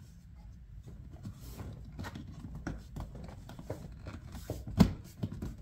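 Hands working a shifter boot and plastic console bezel into place: soft rustling of the boot and small plastic clicks and scrapes, with one sharp click near the end.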